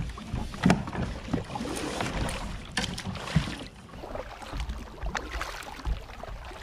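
Double-bladed paddle dipping and splashing through calm water as a plastic sit-on-top kayak is paddled, with irregular sharp knocks of gear and paddle against the hull.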